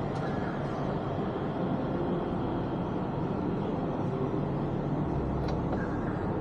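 Steady low rumble and hum of an elevated automated transit train, with a couple of faint clicks near the end.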